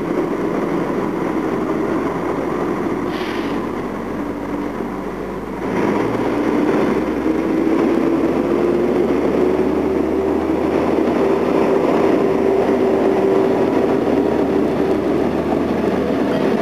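ČD class 814 Regionova diesel railcar pulling away from a station: its engine running steadily, then opening up louder about six seconds in, with a whine that rises slowly in pitch as the train gathers speed.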